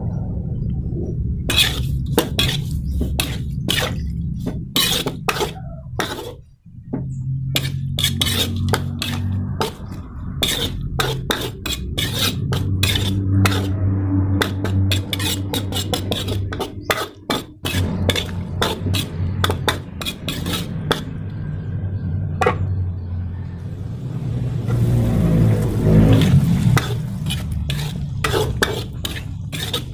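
A spatula scraping and clinking against a metal wok in quick, irregular strokes as the food is stirred, over a steady low hum. A brief sizzling hiss comes near the end.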